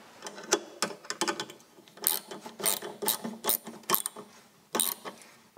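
Ratchet wrench clicking in short strokes, about two a second, tightening the fastening of a small aluminium spill tank to its bracket.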